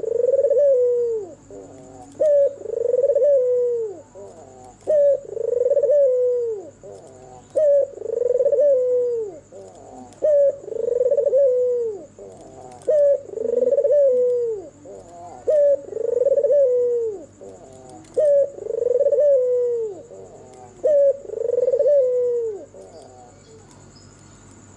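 A white, red-eyed (albino) ringneck dove, the Indonesian puter, giving its cooing song: about nine phrases, each a short coo followed by a longer falling coo, repeated about every three seconds, stopping near the end.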